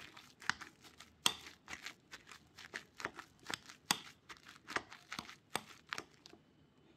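Wire potato masher pressed again and again into boiled potatoes in a ceramic bowl: a series of short, sharp mashing strokes, about two a second, that stops near the end.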